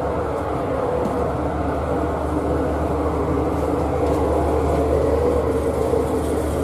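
Steady drone of a patrol ship's engines and machinery, heard from its open deck while the ship is under way, with an even rush of wind and water over it.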